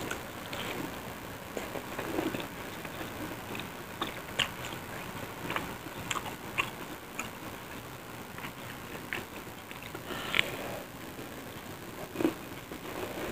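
Close-up mouth sounds of a person biting and chewing crispy fried tempe mendoan: irregular crunches and wet chewing, with a sharper crunch about ten seconds in and another near the end.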